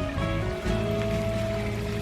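Background music with sustained, slowly changing notes.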